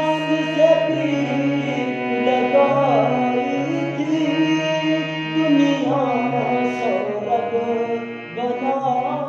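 Background music: a song melody with long held, bending notes over a steady low drone.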